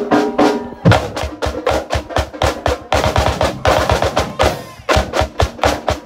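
Marching drumline playing a cadence: rapid snare drum strokes over steady bass drum hits, kicking in with a loud low hit about a second in.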